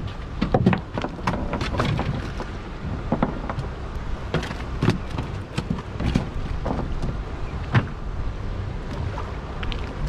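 Choppy sea water slapping and splashing irregularly against a small boat's hull, over a steady low rumble.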